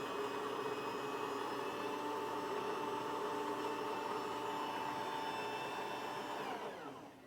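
Motor inside a Philips 3200 Series fully automatic espresso machine whirring steadily after the start button is pressed, then winding down with falling pitch near the end.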